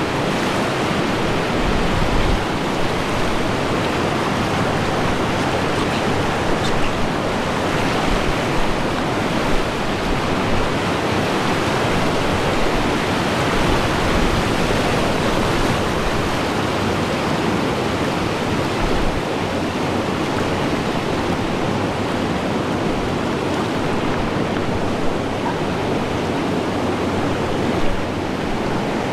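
Steady rush of river water flowing over rocks around a raft.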